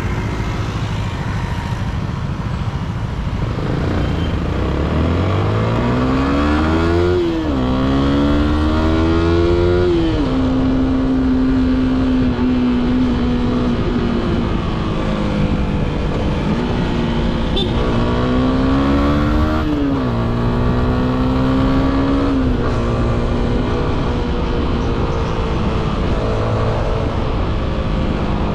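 Yamaha Sniper 155's single-cylinder engine through its stock exhaust, heard from the rider's seat on the move. The engine note climbs and drops at a gear change about 7 and 10 seconds in, holds steady at cruise, then climbs and shifts again around 20 and 22 seconds in, over steady road noise.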